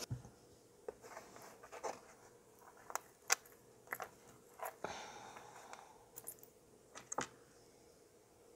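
Scattered light clicks and clinks of small metal jewelry pieces, chain and findings, being handled on a work surface. One sharper click comes about a third of the way in.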